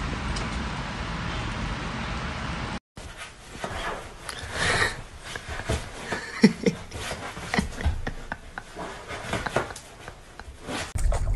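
A steady hiss for the first three seconds. It cuts off abruptly, followed by scattered small knocks and brief squeaky whimpers from a fluffy puppy scrambling up onto a fabric sofa.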